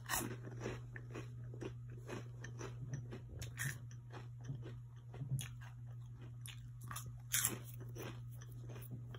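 Close-up crunching and chewing of Flamin' Hot Funyuns onion-flavored rings: a run of irregular crisp crunches, with a few louder bites (near the start, about a third of the way in and about three-quarters in), over a steady low hum.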